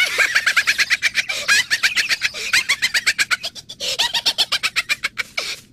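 A ZooZoo character's high-pitched cartoon laughter: a rapid cackle of short 'ha' bursts, about eight a second, with a short break about two-thirds through, stopping just before the end.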